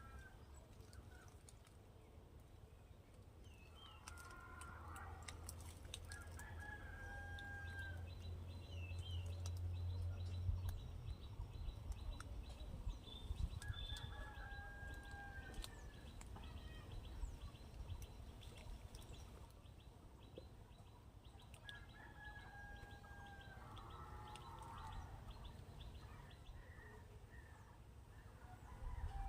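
A rooster crowing several times, with long calls a few seconds apart. A low steady rumble runs under it for a few seconds in the first half.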